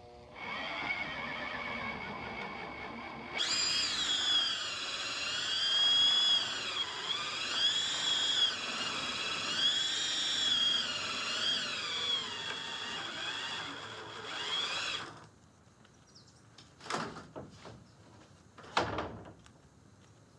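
Half-inch electric drill driving a worm-drive winch, whining as it hoists a sheet of plywood up a ladder lift. The whine gets louder a few seconds in, rises and falls in pitch as the trigger and load change, and stops about three quarters of the way through. Two short noises follow near the end.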